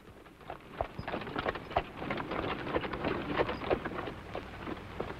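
Horse-drawn cart moving off: a horse's hooves clip-clopping in a dense, irregular clatter that builds up over the first second and eases off near the end.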